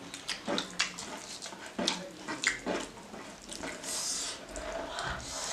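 Close-miked wet eating sounds: chewing and lip smacks, with fingers squishing rice into a pork and axone curry on a plate. It is a run of short clicks and squelches, with a brief hiss about four seconds in.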